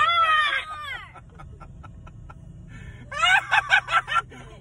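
A man laughing hard in a high pitch: a falling squeal at the start, then a quick run of short laughs about three seconds in. A steady low car hum fills the gap between them.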